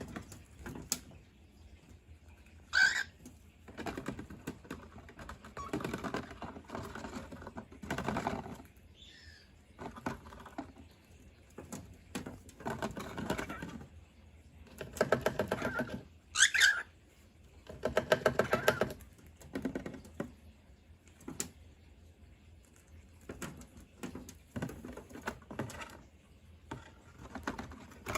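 Cockatiels scuffling and pecking, with repeated spells of rapid tapping and scratching, and a short sharp cockatiel call twice, about three seconds in and again past the middle.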